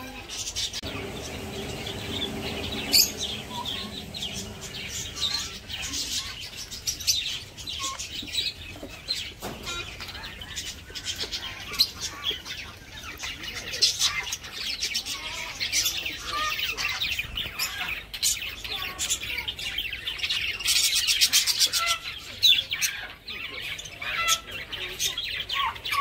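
A flock of budgerigars and other small aviary birds chirping and chattering continuously, many short high calls overlapping.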